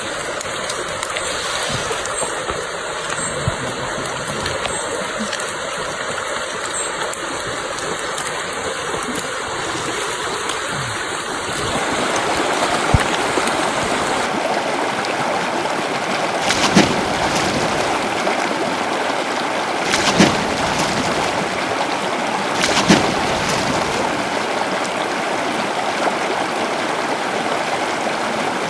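Flowing stream water rushing steadily, its sound changing about twelve seconds in, with a few brief splashes in the second half.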